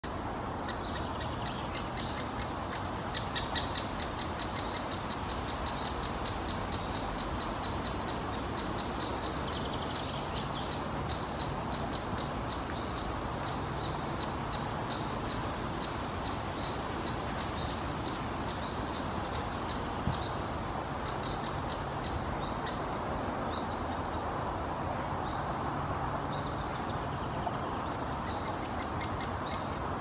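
Great spotted woodpecker nestling calling from inside its nest hole: a long run of short, high notes repeated several times a second, with brief pauses. The calls sit over a steady background hum.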